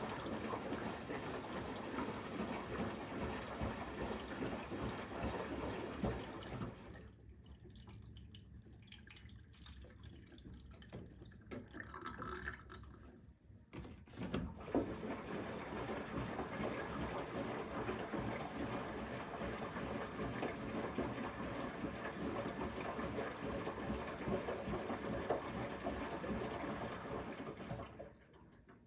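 Candy GrandO Vita Smart Fi+ washing machine taking in water, a steady rush of inflow. It stops about seven seconds in, starts again about halfway through, and cuts off near the end.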